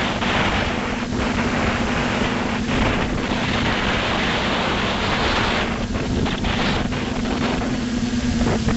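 FPV multirotor drone's motors and propellers buzzing at a steady pitch, heard through its onboard camera's microphone with heavy wind noise rushing over it, swelling and easing.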